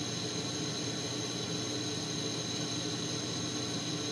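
Propane-oxygen glassworking torch burning with a steady, even hiss.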